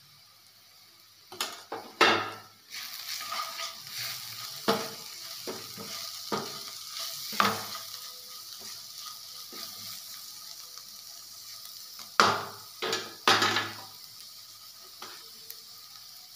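Onion-tomato masala with freshly added spices frying in oil in a non-stick kadai, a steady sizzle setting in about three seconds in. A stirring utensil scrapes and knocks against the pan throughout, loudest about two seconds in and again twice near twelve and thirteen seconds.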